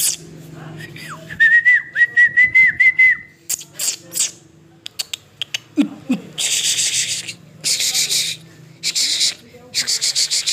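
Whistling: a thin, wavering tone with quick pitch flicks. From about six seconds in comes a run of scraping or rubbing strokes, roughly one a second.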